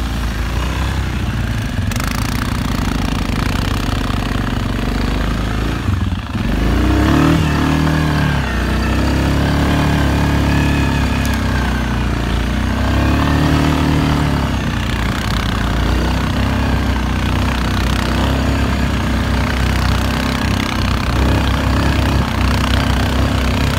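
Suzuki King Quad 750 ATV's single-cylinder engine running while being ridden through snow, its pitch rising and falling with the throttle. There is a brief dip about six seconds in, and after it the engine revs up and down several times.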